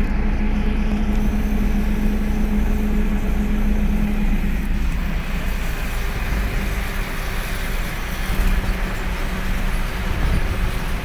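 Traffic on a highway heard from a moving vehicle: a steady engine hum at cruising speed over continuous road and wind roar with a low rumble.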